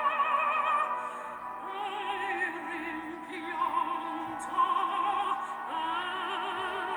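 Operatic singing with orchestral accompaniment: long held notes with a wide vibrato.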